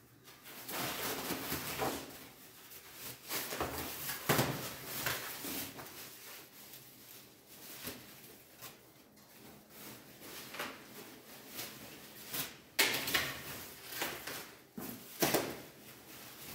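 Clear plastic wrapping film crinkling and rustling as it is pulled off a packaged door frame and bunched up, with cardboard packaging being shifted. A few sharper knocks stand out, about four seconds in and twice near the end.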